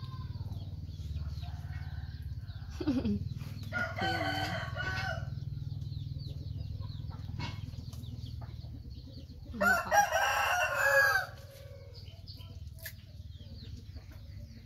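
A rooster crowing twice, a fainter crow about four seconds in and a louder one about ten seconds in, over a steady low hum.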